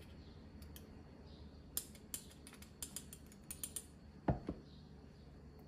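Faint clicks and scrapes of a small metal measuring spoon against a spice jar while ground cumin is scooped out, with one louder knock about four seconds in.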